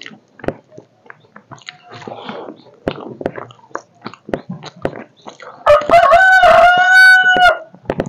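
A rooster crows once, loud, for about two seconds, starting near the end. Under it are the small wet clicks and smacks of rice being mixed by hand and chewed.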